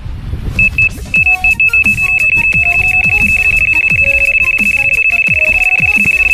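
Electronic carp bite alarm signalling a run: a few single high beeps, then beeps coming faster and faster until they merge into one continuous tone. This is a fish taking the bait and pulling line off the rod, the hanger rising to the alarm.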